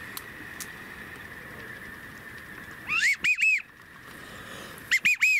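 Wigeon whistle: a rising whistled note that breaks into three quick high whistled notes. It comes twice, about three seconds in and again near the end, over a faint steady background hiss.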